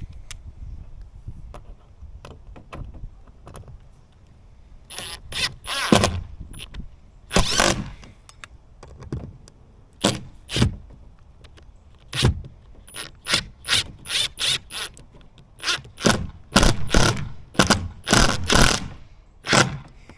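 Ratcheting hand driver clicking in short bursts, stroke after stroke, as screws are run down to fasten a flip-up boat cleat.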